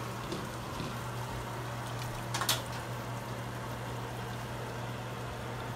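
Browned ground beef and its grease pouring from a hot skillet into a plastic colander in a stainless steel sink, over a steady low hum. A brief knock comes about two and a half seconds in.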